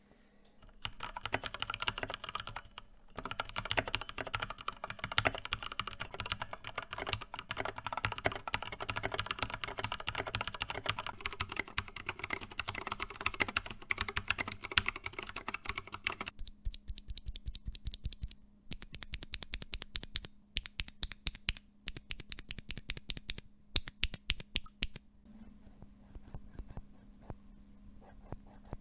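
Mechanical keyboard with Cherry MX Red linear switches being typed on. Fast continuous typing runs for about the first fifteen seconds, then slower, separate keystrokes come in short runs, and only a few faint presses are left near the end.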